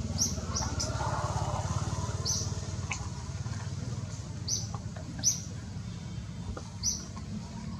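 Small birds chirping: short high notes, each falling quickly, repeating every second or so over a steady low background rumble.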